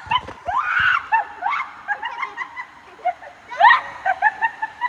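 Children's voices shrieking and laughing in a busy water park: short high calls one after another, with a louder rising whoop about three and a half seconds in.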